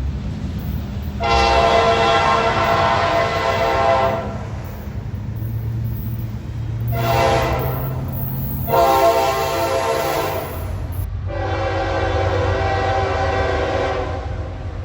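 Locomotive air horn sounding a series of blasts, each a steady chord of several tones: one long blast, then a short one, then two longer ones close together. A low rumble from the passing train runs underneath.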